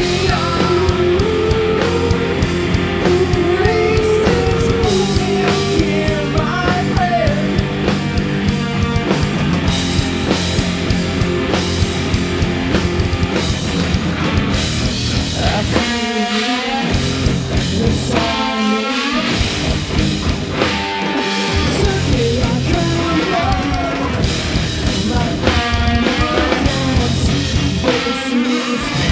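Live heavy rock band playing: distorted electric guitars, bass and drum kit. The low end cuts out briefly several times in the second half, in short stops.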